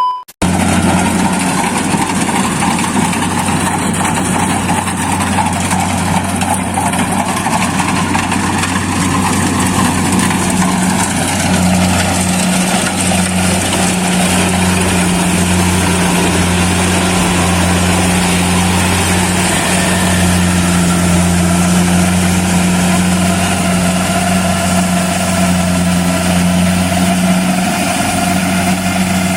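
Kubota DC-70 Plus combine harvester running steadily: a continuous, even engine drone with a low hum and machinery noise, holding the same note throughout.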